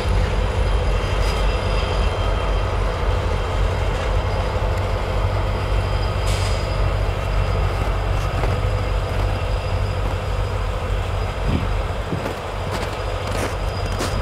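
Freight train cars rolling slowly past with a steady low rumble and a thin, steady squeal from the wheels and brakes as the train slows toward a stop. A few knocks near the end.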